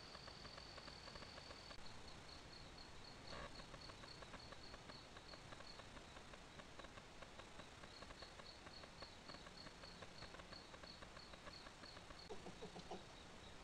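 Faint night insects calling: a steady high trill, then after about two seconds a high chirp repeated about three to four times a second, with a soft knock about three seconds in.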